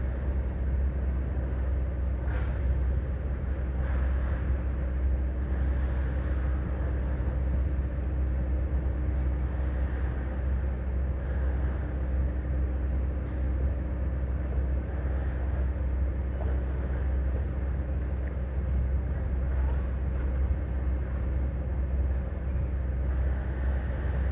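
Heavy diesel machinery running steadily, a deep low rumble with a faint engine tone, broken by a few short hisses.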